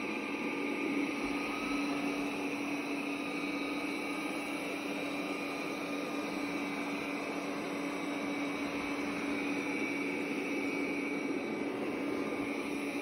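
Robot vacuum cleaner running on a carpet: a steady whir with a constant low hum and a faint high whine.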